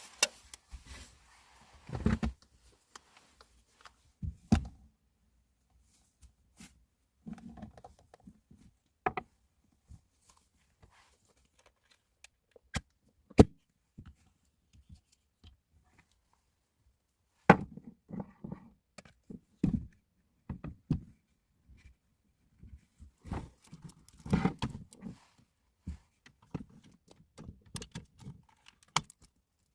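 Scattered thuds, taps and sharp clicks of things being handled and set down inside a car, with quiet gaps between them.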